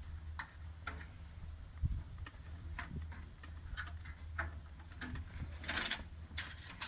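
Light clicks and taps, then a longer stretch of metallic scraping and rattling near the end, as a removable stainless steel side screen is unhooked and lifted off a tent wood stove. A steady low hum runs underneath.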